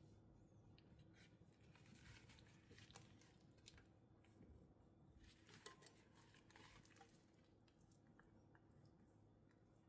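Near silence with faint soft squishing and clicking handling noises, busiest in the middle with one sharper click, over a steady low hum.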